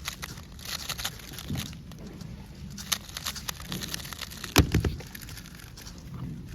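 Rapid clicking and clacking of a speed cube being turned, with one louder knock about four and a half seconds in.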